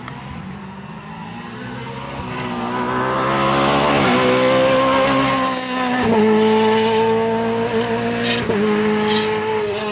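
Rally car engine running hard at high revs, its note building to a loud, steady pitch. There are short breaks in the note about four, six and eight and a half seconds in.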